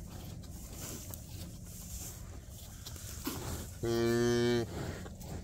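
A Jersey cow gives one short, low moo of steady pitch, under a second long, about four seconds in, as she licks her newborn calf.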